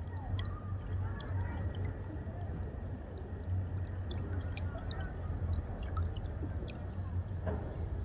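Water flowing and gurgling steadily, like a small stream running over stones, with little bubbling and dripping sounds throughout.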